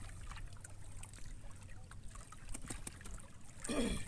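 Faint trickling water with scattered small clicks and knocks.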